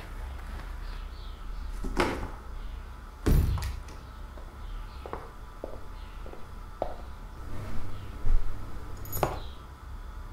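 A few separate household knocks and thumps, with a heavier, deeper thump about three seconds in and a sharper knock near the end, over a low steady room hum.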